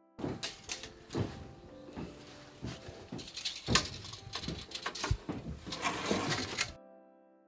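Renovation work by hand: an irregular run of sharp knocks and taps, about a dozen, with rustling and scraping between them. The loudest hit comes about halfway through.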